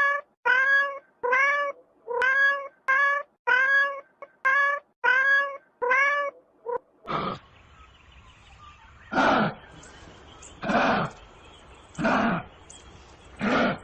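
A cat meowing over and over in short, rising calls, about one and a half a second. About seven seconds in, a different animal takes over with louder, lower calls every second and a half or so.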